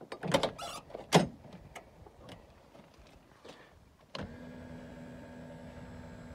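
Clicks and knocks of handling inside a car cabin. Then, about four seconds in, a steady hum starts suddenly and keeps going.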